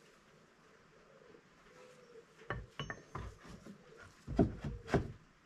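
Hard metal objects, such as tools or parts, being handled and set down on a workbench: a run of sharp knocks and clatters in the second half, the loudest near the end.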